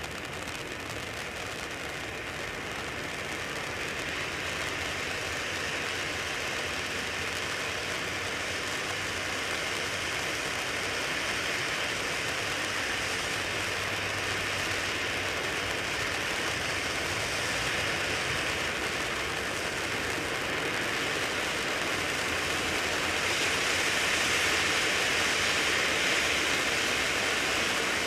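Wolff 'Royal Touch' cone fountain firework, a 100-gram ground volcano, spraying sparks with a steady hiss that slowly grows louder as it burns.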